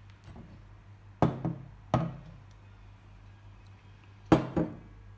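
Sharp knocks on a wooden tabletop as slime is handled out of a glass bowl: a quick double knock a little over a second in, a single knock just after, and another quick double knock near the end.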